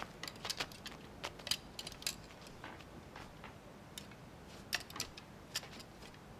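Scattered light clicks and taps at an uneven pace, with a few sharper ones.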